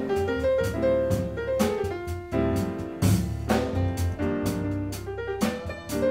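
Jazz piano trio playing live: piano chords and melody over bass and drums, with drum and cymbal strokes keeping a steady beat of about two a second.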